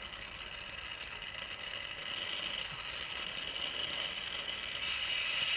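A heat source running steadily as it heats a leaf spring's rubber bush, to break the rubber's bond with the steel centre, getting louder near the end.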